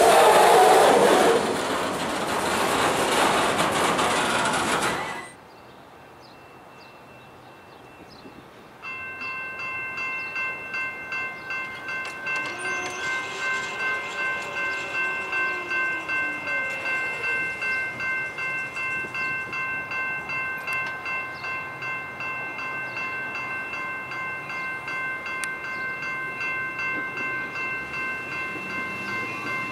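A freight train of autorack cars rolls past close by with a loud rumble and wheel clatter, cut off sharply about five seconds in. A few seconds later a railroad grade-crossing warning bell starts ringing, about two strokes a second, and keeps ringing as another train approaches from the distance.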